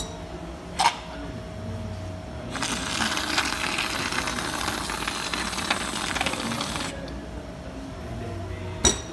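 Stainless steel whipped cream dispenser spraying cream onto a shake: a hiss of escaping gas with a spluttering crackle, starting about two and a half seconds in and lasting about four seconds. A sharp click comes about a second in and another near the end.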